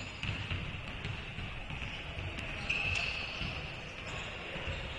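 Basketball dribbled on a hardwood court, with irregular thuds of the ball and players' running footsteps. A brief high sneaker squeak comes about three seconds in.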